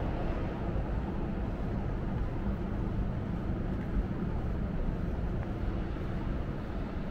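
Steady city street ambience: a constant low hum of traffic with no distinct events.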